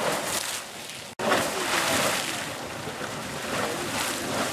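Super Frying Pan Geyser erupting: hot water bursting and splashing out of its vent in uneven surges, with a short break in the sound about a second in.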